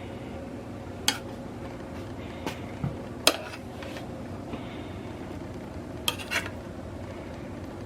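Metal kitchen utensils clinking against cookware: about six sharp, ringing clinks spread out, the loudest about three seconds in, over a steady low hum.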